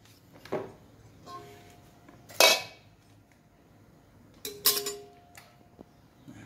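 Stainless steel grinder blade knocking and scraping against the stainless steel bowl of a meat grinder as it is fitted onto the shaft: a few separate clanks, the loudest about two and a half seconds in and a cluster near five seconds, several leaving the bowl ringing briefly.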